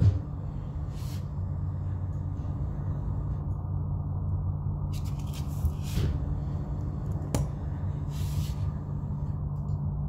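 A steady low machine hum, with a few brief rustles and a sharp click about seven seconds in.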